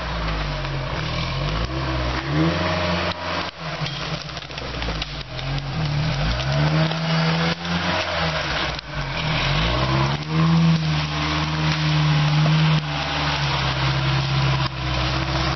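An off-road 4x4's engine revving up and down again and again as it crawls and climbs over rough forest ground. The pitch rises and falls several times and holds high for a couple of seconds about ten seconds in, then drops back.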